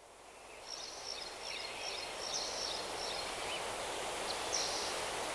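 Outdoor ambience fading in: a steady hiss of open-air background noise with small birds chirping, several short chirps in the first few seconds and another near the end.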